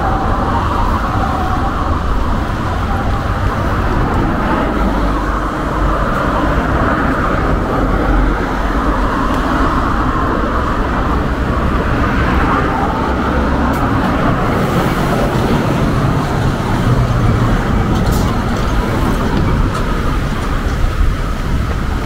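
Steady road traffic noise from a city street.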